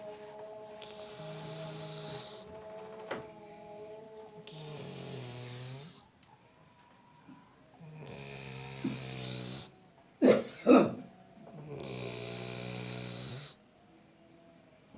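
A person snoring loudly: four long, low rasping snores about every three and a half seconds, with two short, sharp snorts just after the middle that are the loudest sounds.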